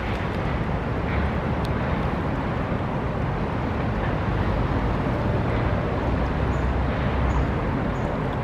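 Steady low rumble of city road traffic, an even noise with no distinct events.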